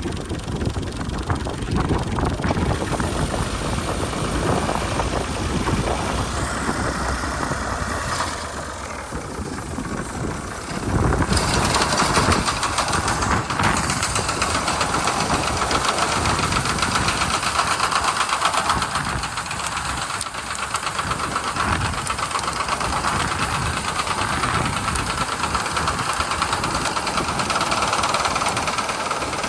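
Al-Ghazi 65 hp tractor's diesel engine running steadily while working a reaper, getting louder about eleven seconds in and staying so.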